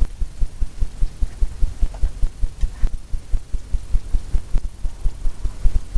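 A low, rhythmic throbbing hum, about five pulses a second, steady throughout, with a few faint clicks over it.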